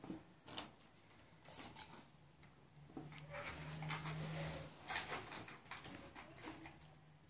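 Handling noise from a child's pink plastic drawing board with a carry handle as it is lifted and turned: several short plastic knocks and clicks, with a longer stretch of rubbing and rustling about three seconds in.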